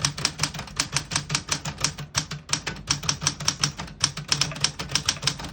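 1976 Smith-Corona Galaxie Twelve manual portable typewriter being typed on quickly: a fast, even run of typebar strikes, about six or seven a second, with short pauses about two and four seconds in.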